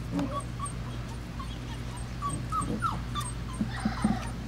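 Five-week-old Labrador puppies whimpering: a string of short, faint squeaks and whines, a few of them falling in pitch.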